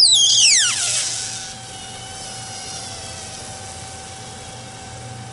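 A Sprague Atom 20 µF 450 V electrolytic capacitor bursting: a sudden loud blast as its aluminium end blows out, with a shrill whistle falling steeply in pitch over about a second and a strong hiss as gas jets out. The hiss dies down within a couple of seconds to a faint steady hiss as it goes on smoking.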